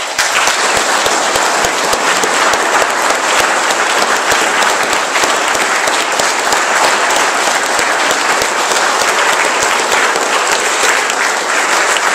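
Audience applauding: a large group clapping hands, breaking out suddenly and holding at a steady, loud level.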